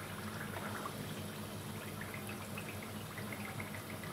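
Onions and tomato paste frying in hot oil in a pot: a steady sizzle with small crackling pops about halfway through.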